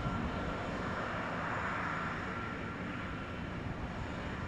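Aircraft engines running steadily: a low rumble with a faint, steady high whine.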